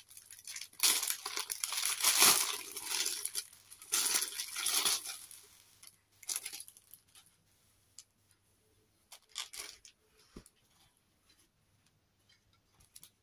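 Thin plastic packaging bag being torn open and crinkled, loudest over the first five seconds. After that come a few softer rustles as the folded fabric is pulled out and shaken open.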